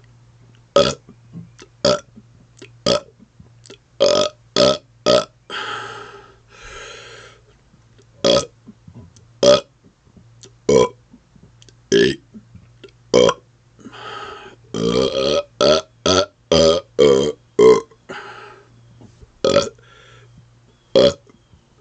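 A man burping over and over on purpose: about twenty short burps, roughly one a second, with brief breaths between some of them and a quicker run of burps in the second half.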